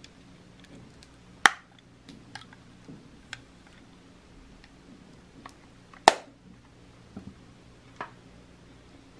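Metal vintage powder compact being handled, with two sharp snapping clicks about a second and a half in and again about six seconds in, and lighter clicks and taps in between.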